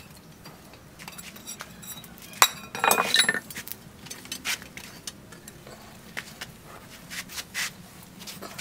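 Iron blacksmith's tongs clinking and rattling against a red-hot steel bearing ring and the iron tools at the forge: scattered light metallic clicks, with a louder cluster of ringing clanks about two and a half seconds in.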